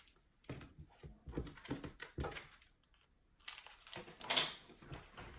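Foil trading-card packs being handled on a table: a run of soft, irregular knocks and taps, then a louder burst of wrapper crinkling about three and a half seconds in.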